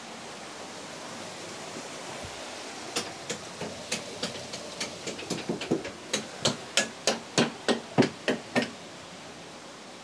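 Steel hammer striking an iron wedge driven into a slot in a heavy wooden beam, about twenty quick metallic blows at roughly three a second that start a few seconds in and grow louder, over a steady rushing background.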